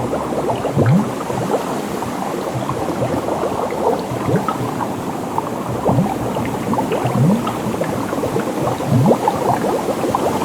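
Water bubbling and gurgling steadily, a dense crackle of small bubbles with a few deeper low gulps.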